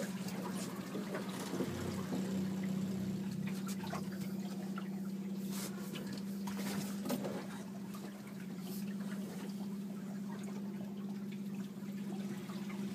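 Outboard motor idling with a steady low hum, while water trickles and laps against the boat's hull, with scattered light clicks.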